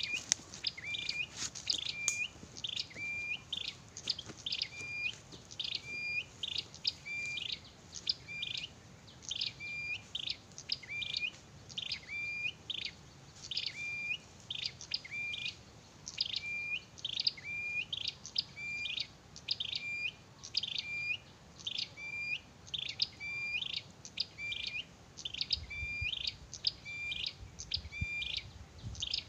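Prinia (perenjak) song: a short, high, chirping phrase of quick falling notes ending on a held note, repeated over and over about once a second at a steady pace.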